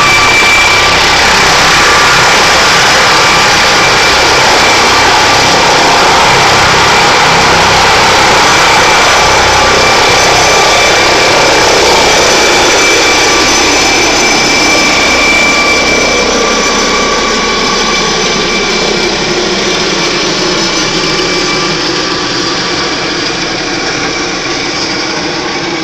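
Air ambulance helicopter lifting off close by: loud turbine whine over heavy rotor noise. About fifteen seconds in it starts fading and its pitch slowly falls as the helicopter climbs away overhead.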